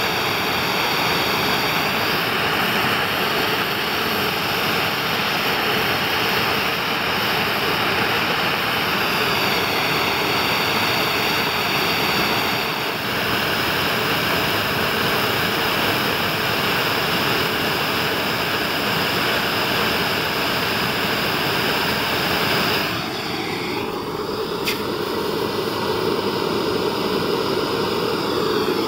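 Gas blowtorch burning steadily with a continuous rushing noise. Near the end its tone shifts and a steady hum joins the rush.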